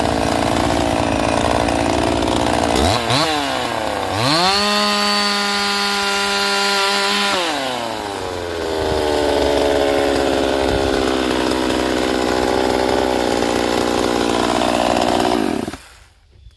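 A ported Husqvarna 50 two-stroke chainsaw, tuned rich, running hard in wood. About three seconds in it revs up to a high steady whine for a few seconds, then drops back and labours again. Near the end it cuts off abruptly.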